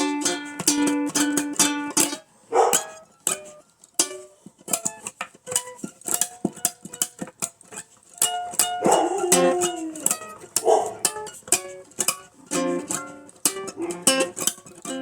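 Ukulele and acoustic guitar picking an old-time blues tune, plucked notes with a short quieter stretch about two seconds in. A few short, bending voice-like yelps sound over the playing.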